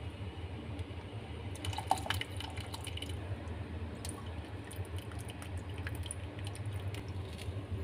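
Liquid poured and dripped into a pot of broth: tamarind water splashing in from a bowl, then vinegar dribbled from a wooden spoon. There is a cluster of splashes and small clinks about two seconds in, then scattered drips, over a steady low hum.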